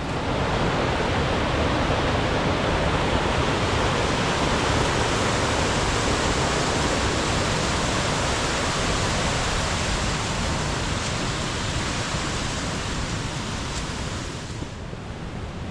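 Waterfall: a steady rush of falling water that sets in suddenly and eases off near the end.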